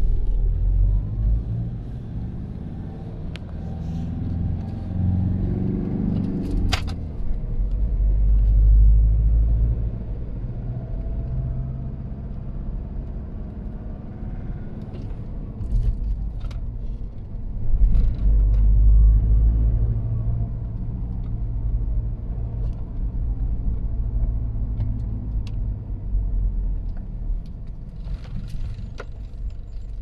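Toyota 1KD-FTV four-cylinder turbodiesel pulling away and accelerating, heard from inside the cabin: engine rumble with a siren-like turbo whine rising as it takes off. The whine is the start of the turbo failing, overworked because of a cracked MAP sensor filter.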